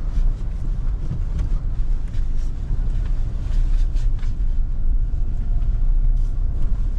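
Kia Seltos on the move, heard from inside the cabin: a steady low rumble of road and engine noise, with a few faint clicks.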